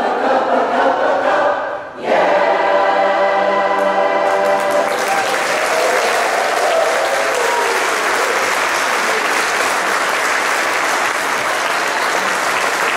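Mixed choir singing the last bars of a song, ending on a long held chord, then audience applause from about five seconds in.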